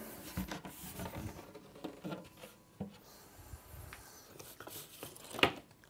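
Faint rubbing, rustling and light knocks of flat-pack cabinet panels being handled and laid on cardboard packaging.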